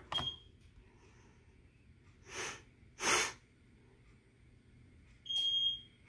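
Fire alarm panel being reset: a button click with a short high-pitched piezo beep at the start, then a louder half-second steady beep about five seconds in as the panel initializes. Two short breathy puffs of noise come in the middle.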